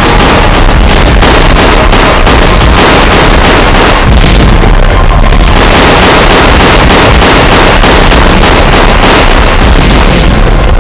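Action-film battle sound effects: explosions and rapid gunfire, loud and continuous.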